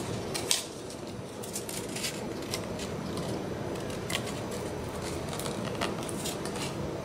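Small handling noises of fingers bending thin wire over against the back of a foam board: a few scattered faint clicks and scratches, the sharpest about half a second in, over a steady low room hum.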